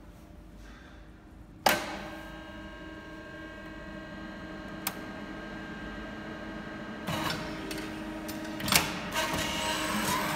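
FEDA FD-300-2A automatic hydraulic lathe starting up. About two seconds in, a motor switches on with a sharp click and settles into a steady hum. From about seven seconds in, as the automatic cycle begins, come further clunks and a louder running sound.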